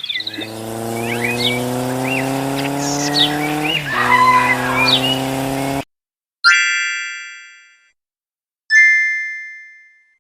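An engine running and slowly rising in pitch, with birds chirping over it, cuts off suddenly. Then two separate bell-like dings each ring and fade away.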